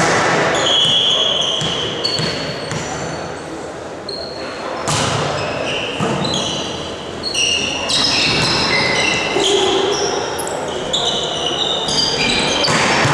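Volleyball play in a sports hall: many short, high sneaker squeaks on the court floor and several sharp hits of the ball, the loudest about five seconds in, with voices, all echoing in the hall.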